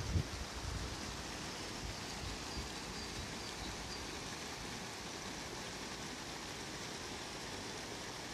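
Steady rushing hiss of river water pouring over a low weir and through the rapids below it. In the first second there are a few low bumps on the microphone.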